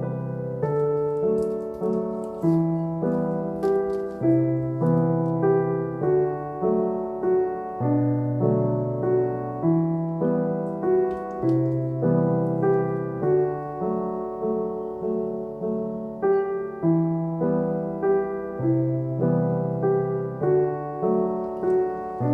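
Background piano music: a gentle, evenly paced tune with notes struck at a steady rhythm.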